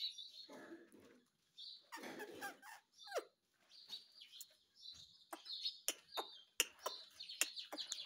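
Indian ringneck parakeet making quiet chatter: a couple of soft mumbled sounds and a short falling chirp in the first half, then a run of short clicks with faint high chirps.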